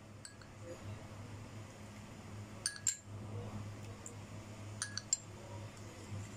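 A ceramic soup spoon clinks against a ceramic bowl while stirring lemon juice and melted butter. There are two pairs of light clinks, one near the middle and one about three-quarters through.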